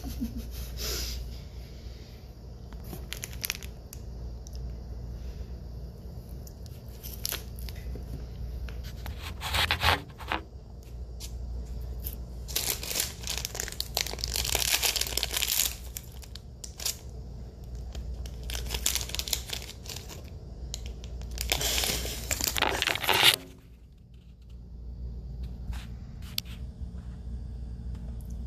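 Plastic bag of gummy candy being pulled and torn open, the wrapper crinkling and tearing in several bursts, the longest around the middle.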